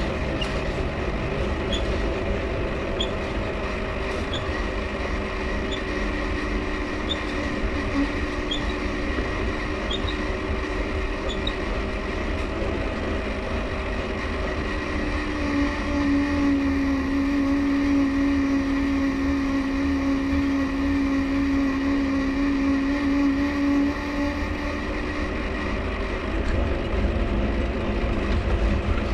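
Mifa folding bike riding along with its dynamo running as a steady whine that drifts in pitch with speed, over constant low rolling rumble. Faint short squeaks from the crank come in a regular rhythm, about every 0.7 s, during the first third.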